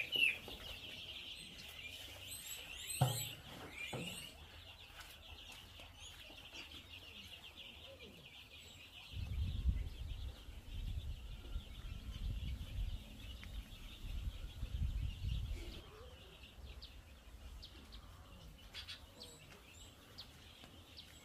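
Broiler chicks in a brooder peeping as a flock: a steady high chorus with some single chirps, fading out after about eight seconds. Later comes a low rumble lasting several seconds.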